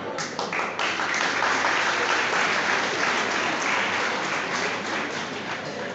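An audience applauding, a dense patter of many hands clapping that eases slightly near the end.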